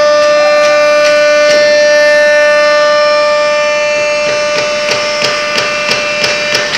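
CNC wood milling and engraving router running, its spindle giving a steady high-pitched whine with several tones as it cuts wood. From a little past the middle, sharp ticks come about three times a second.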